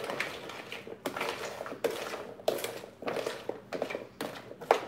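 Mango salsa being mixed in a plastic mixing bowl: repeated scraping, rustling strokes with light knocks against the bowl, about three every two seconds.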